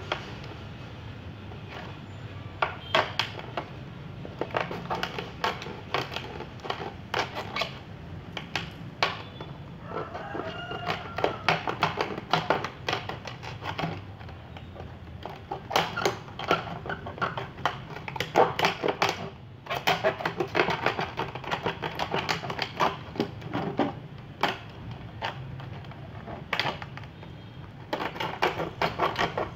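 Thin plastic water bottle crackling and clicking in irregular sharp clicks as hands press and turn it, over a steady low hum.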